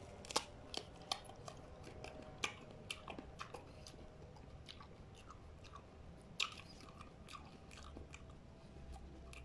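A bite into a prickly pear cactus pad (nopal), then crunchy chewing: sharp crunches come about every half second for the first few seconds, then fewer, with one louder crunch a little past six seconds.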